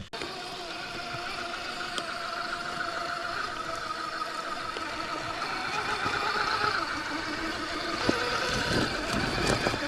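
Axial SCX6 RC rock crawler's electric motor and geared drivetrain whining steadily as it climbs a rock, the pitch wavering slightly with load, with a few knocks near the end.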